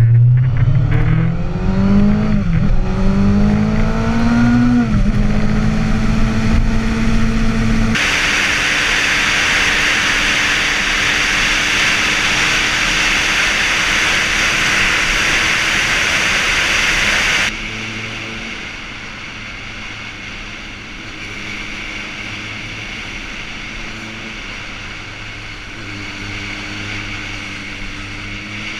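Kawasaki Ninja 636's inline-four engine pulling away, its pitch rising through two gears with a drop at each upshift, then holding steady. For a long stretch in the middle, loud wind rush over the microphone at speed covers the engine, then cuts off suddenly. After that the engine cruises at a lower, steadier note.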